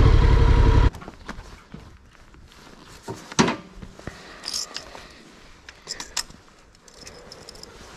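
Honda NC750X's parallel-twin engine idling, switched off abruptly about a second in. Scattered clicks and knocks follow, the sharpest about three and a half seconds in.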